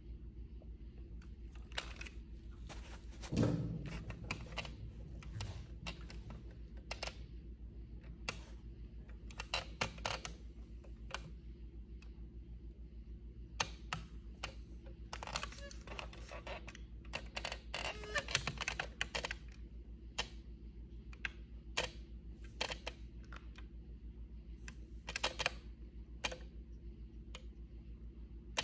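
Irregular small clicks and taps from a nail polish bottle and brush being handled while toenails are painted, over a steady low hum. One heavier thump about three and a half seconds in, and a busy run of clicks in the middle.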